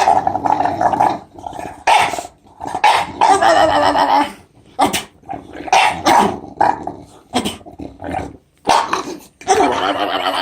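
Bulldog growling and grumbling in a run of short, irregular vocal bursts with a few bark-like yelps, the strange 'alien' noises it makes while playing.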